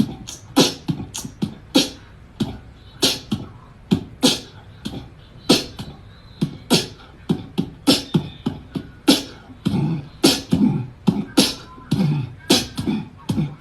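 A percussive rhythm of sharp clicks and thumps, about two to three a second and unevenly spaced, like beatboxing.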